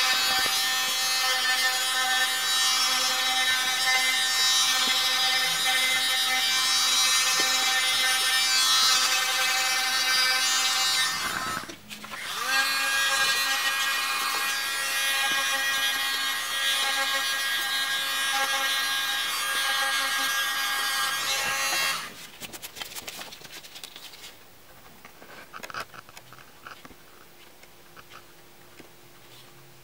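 Electric manicure drill running with a steady high whine as its bit works along the cuticle of a gel nail; it stops briefly about twelve seconds in, spins back up, and cuts off about two-thirds of the way through. After that, faint light snips of curved cuticle scissors.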